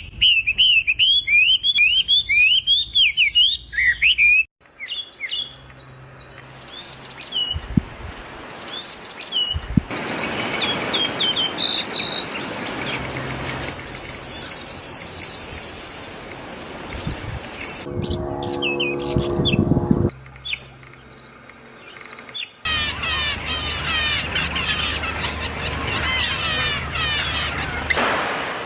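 Small birds chirping and singing, in several short stretches that change abruptly from one to the next: quick rising chirps at first, then dense high twittering, and a lower, harsher call with a buzzy tone about eighteen seconds in.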